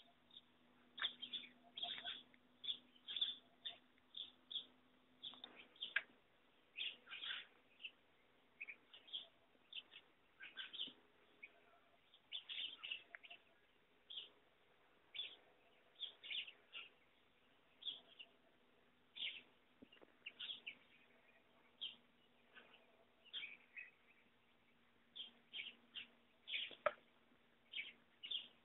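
Small birds chirping, short high chirps coming one or two a second, over a faint steady hum.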